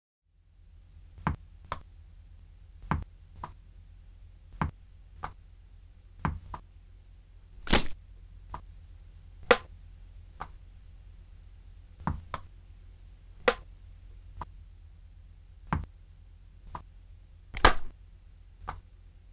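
Sharp clicks and knocks at irregular intervals, roughly one a second, some much louder than others, over a steady low hum that starts about half a second in.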